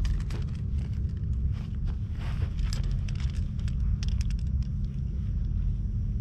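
A plastic grooming brush stroking through a cat's fur, with scattered scratchy crackles and clicks over a steady low rumble.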